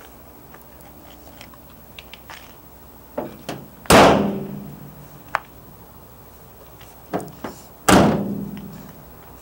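Rear cargo doors of a 2009 Chevrolet Express 2500 van slammed shut one after the other, about four seconds apart, each ringing on briefly. A couple of light clicks come just before each slam.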